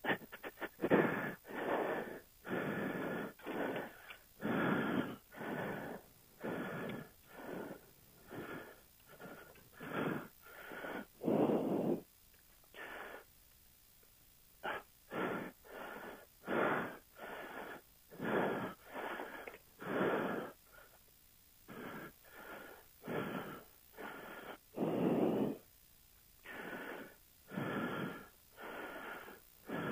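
Gusty wind buffeting the microphone in short, irregular blasts about once a second, with a brief lull near the middle.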